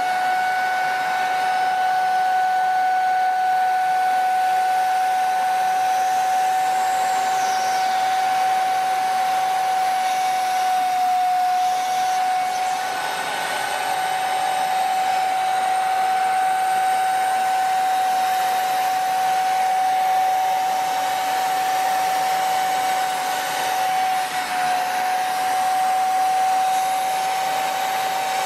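Vacuum cleaner running steadily with its nozzle on the valve of a vacuum storage bag, drawing the air out of a bag of packed clothes. Its steady whine over an even rush of air dips briefly in pitch twice, about a third of the way in and again near the end.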